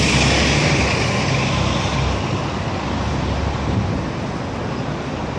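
City street traffic: a steady low rumble of vehicles, with one passing close at the start whose hiss fades away over the first couple of seconds.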